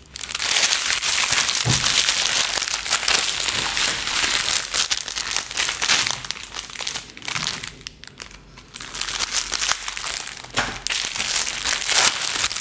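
Plastic packaging bag crinkling and rustling as it is handled and opened, with a quieter lull about eight seconds in.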